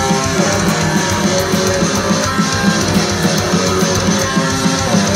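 Flying V-style electric guitar played through an amplifier: a fast riff of quick, evenly picked notes, starting right after a held chord.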